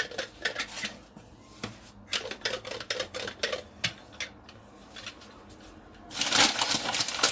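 Rolling pin going back and forth over dough on a floured worktop, clicking and rattling in quick irregular runs for the first four seconds or so. Near the end comes a louder, dense scraping rustle.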